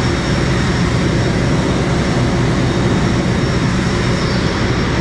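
Haas CNC vertical machining centre cutting with flood coolant spraying inside its enclosure, heard over the steady hum of a shop full of running CNC mills. It is a loud, even hiss and hum with a faint high whine.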